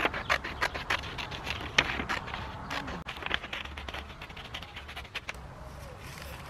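Scissors snipping through a sheet of paper, a quick run of short, crisp snips that stops about five seconds in, over a steady low background rumble.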